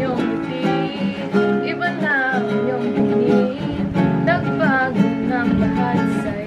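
Acoustic guitar music, strummed, with a melody line gliding over it.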